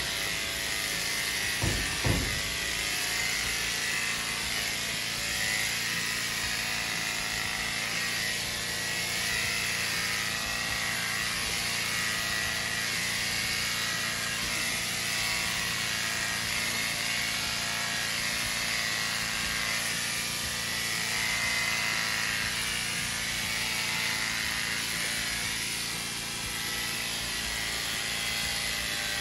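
Corded electric horse clippers running steadily with a constant buzzing hum as the blades cut through the horse's coat. Two brief knocks about two seconds in.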